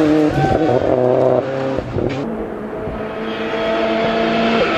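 Volkswagen hillclimb race car accelerating hard up the hill, its engine revving with a quick run of gear changes, the pitch stepping down at each shift. About two seconds in the sound drops to a quieter, more distant engine note that slowly grows louder as the car approaches.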